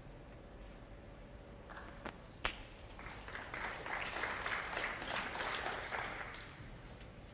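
A sharp click of snooker balls about two and a half seconds in, then the audience applauding for a few seconds, swelling and then fading away.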